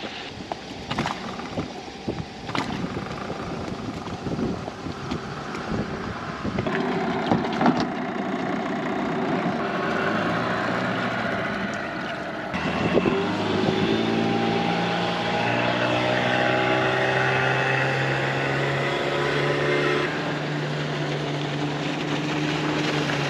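Small Yamaha outboard motor on an inflatable dinghy, running. About ten seconds in its steady note firms up, then climbs as it is throttled up and the dinghy pulls away.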